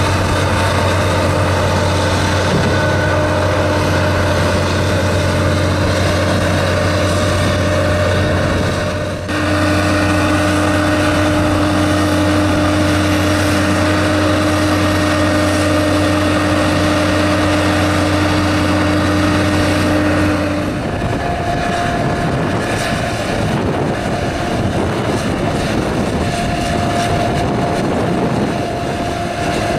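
Tractor engine running steadily, a constant low hum with a steady whine above it. The sound breaks off briefly about nine seconds in, and after about twenty-one seconds it changes to a different engine note with a higher steady tone.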